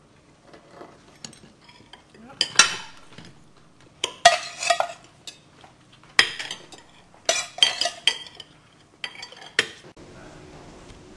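Cutlery clinking and scraping against plates and bowls as people eat, in scattered sharp clinks. Near the end the clinks stop and a steady faint hum takes over.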